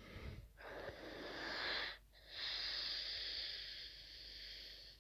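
A person asleep after taking tramadol, snoring loudly with a wheezy, breathy sound: two long breaths, the second longer than the first.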